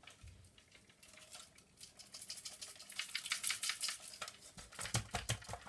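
Loose grains of dry pudding rice rattling and clicking inside the base plate of a vintage Hoover Hooverette's floor head as it is handled, where the rice has got trapped. A patter of small clicks that grows denser, with a few low knocks near the end.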